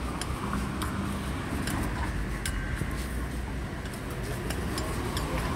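Steady low rumble of street traffic and engines, with scattered faint clicks.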